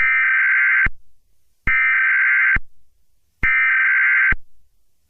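Emergency Alert System SAME header tones: three buzzy digital data bursts, each just under a second long, with even pauses between them. They mark the start of an emergency alert broadcast.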